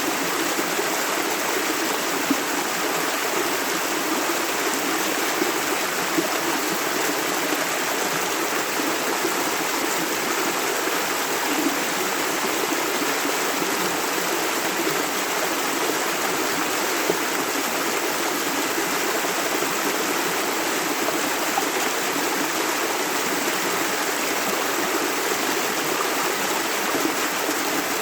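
Shallow river running steadily over stones, a continuous rushing and babbling of water with small irregular splashes.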